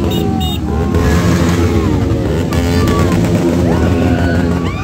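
Several motorcycle engines running together in a steady low drone, with voices over it.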